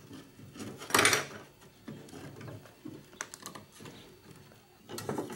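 Scattered clicks and knocks of a fuel pump and sending unit assembly being handled and worked apart by hand. There is a louder clack about a second in and a quick cluster of clicks around three seconds.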